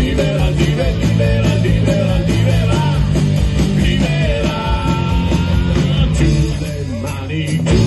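Live rock band playing through an outdoor PA system: electric guitars, bass and drums, with some long held notes in the middle.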